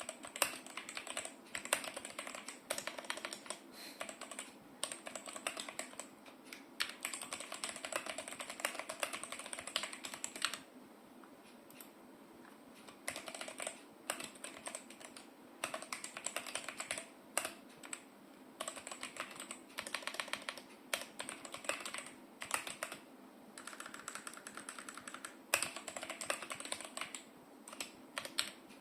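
Typing on a Vortexseries GT-6 mechanical keyboard: fast runs of key clacks broken by a few short pauses, picked up by a phone's microphone.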